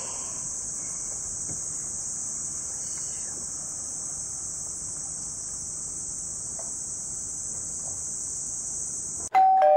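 A steady, high-pitched shrilling of a summer insect chorus over a faint outdoor background. Near the end it cuts off and a loud two-note ding-dong chime sounds, a higher note then a lower one, ringing out.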